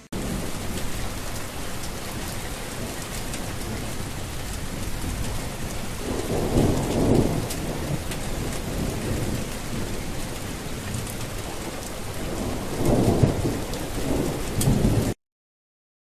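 Steady heavy rain with two rolls of thunder, one about six seconds in and one near the end; it cuts off suddenly.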